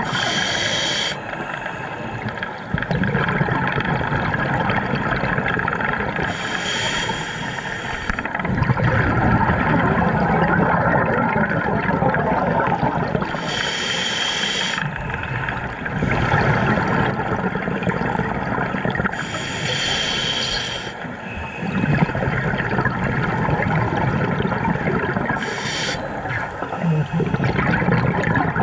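Scuba diver breathing underwater through a regulator: a short hiss of inhalation about every six seconds, with the bubbles of each exhalation gurgling in between.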